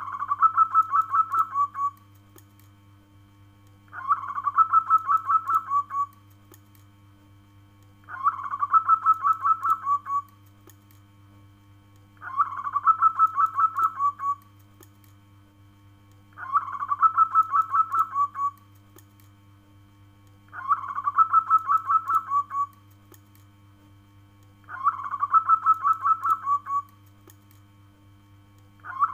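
Zebra dove (perkutut) calling: a rapid string of about ten short cooing notes lasting about two seconds. The phrase repeats eight times, evenly spaced about four seconds apart.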